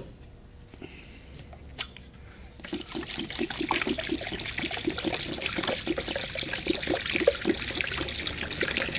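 White vinegar pouring from a plastic jug into a plastic tub, splashing onto a rusty axe head, starting about two and a half seconds in after a few faint clicks. The tub is being filled as a vinegar soak to cover the axe head and lift the rust.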